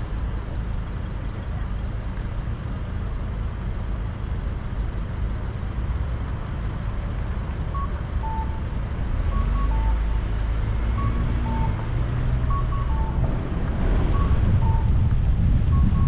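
Car driving, with steady road and engine rumble that grows louder in the second half. From about halfway, a short electronic two-note chime repeats, a higher note followed by a lower one, like a pedestrian crossing signal.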